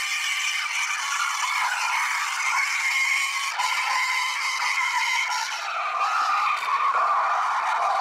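Coffeemax espresso machine's steam wand frothing milk in a small stainless steel cup: a loud, steady hissing screech, a noise that is normal for frothing. About six seconds in it drops lower in pitch.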